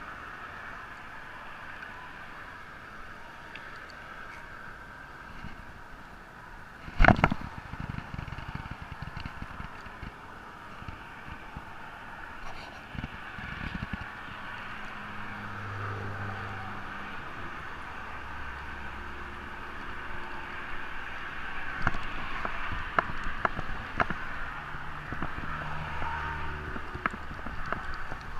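Road traffic passing over a steady outdoor hiss, with one sharp loud knock about seven seconds in. Scattered clicks and ticks from handling the fishing rod and spinning reel come in the second half.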